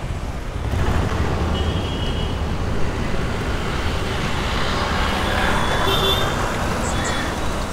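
Motor traffic on a city street heard from a moving bicycle: a steady low rumble of engines and road noise, with two brief faint high tones, about two seconds and six seconds in.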